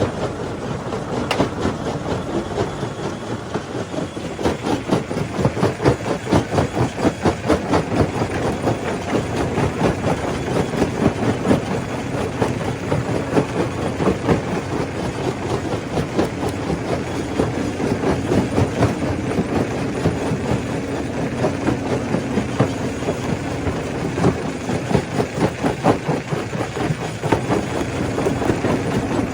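Stone crusher running as it breaks rock: a dense, uneven clatter of knocks over a steady machine hum.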